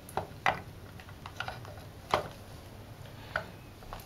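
Scattered light metallic clicks and knocks, about half a dozen, as the gear clusters of a Honda CL160 transmission are turned by hand in the open crankcase, gears meshing and shifting against the shift forks.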